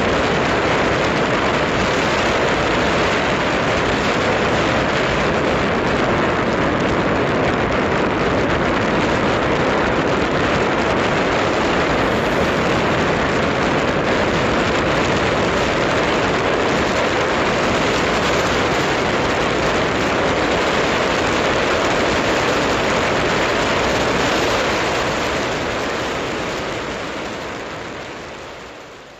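A loud, steady rushing noise with no pitch or rhythm, like heavy rain, rushing water or wind on the microphone. It cuts in abruptly and fades away near the end.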